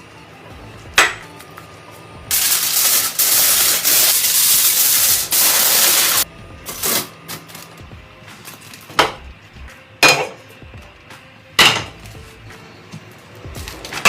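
Cooking pots and utensils knocking and clinking several times. Between them, a loud rushing hiss lasts about four seconds and cuts off suddenly.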